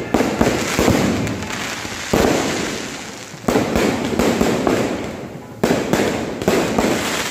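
Aerial fireworks going off: a quick string of sharp bangs, each trailing away in a rumbling crackle, with bigger reports about two seconds in, three and a half seconds in and near the end.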